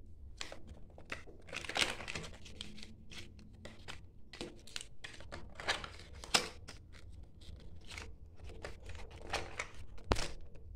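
Hands opening a Kinder Joy toy capsule and its wrapping: irregular crinkling and tearing of thin plastic, with sharp plastic clicks, the loudest a little after six seconds in and again about ten seconds in as the capsule comes apart.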